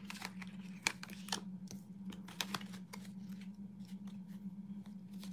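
Tarot deck being shuffled by hand: faint, irregular clicks and flicks of cards, over a steady low hum.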